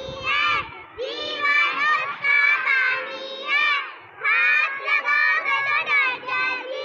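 A group of young children singing a ring-game song together in high voices, in phrases with short breaks about a second in and about four seconds in.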